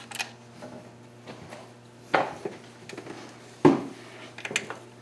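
Metal hand tools clinking and knocking against each other and the engine, four separate knocks, the loudest about three and a half seconds in, over a faint steady low hum.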